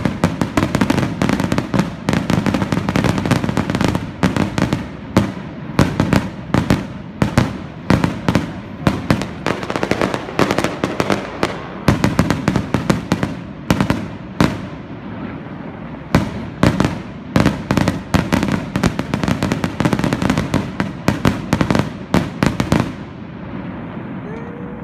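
Aerial fireworks display: a dense, continuous run of bangs, several a second, that stops suddenly near the end.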